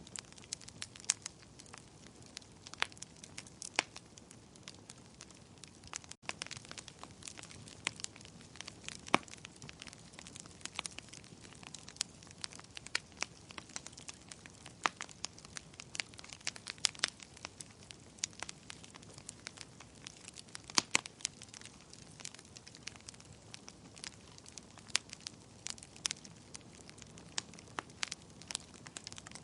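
Wood fire in a fireplace, crackling and popping with many sharp, irregular snaps over a soft steady rush of burning. The sound briefly cuts out about six seconds in.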